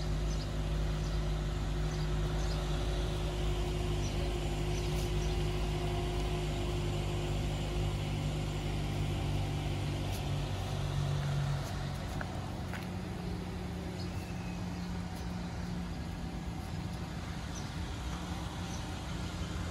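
Steady low machinery hum with a few fixed tones, easing slightly in level about twelve seconds in.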